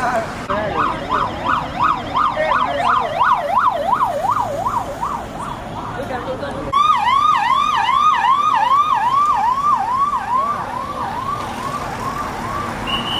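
Two vehicle sirens one after the other. The first yelps up and down about three times a second; about seven seconds in, a louder siren takes over with repeated sweeps about twice a second, which fade toward the end. Traffic runs underneath.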